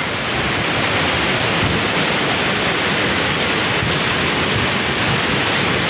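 Muddy flash-flood water rushing across the ground, a loud, steady rush with no breaks.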